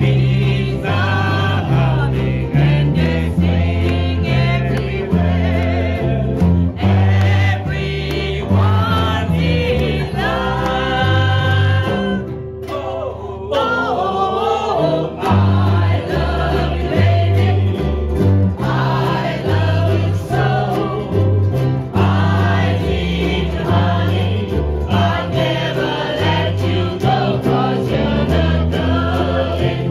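Several ukuleles strummed together with an electric bass guitar playing the bass line, while a group of voices sings the song along with them.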